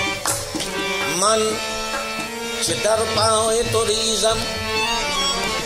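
Qawwali music: an ornamented melody over a steady drone, with a tabla rhythm beneath.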